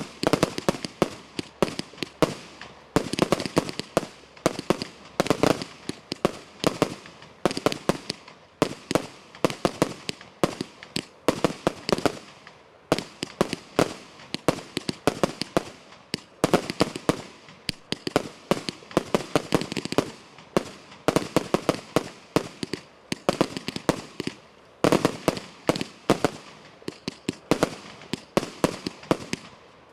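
Thunder Bomb firework cake firing a barrage: aerial shells bursting in rapid, uneven volleys of loud, sharp bangs, several a second, with short lulls every few seconds.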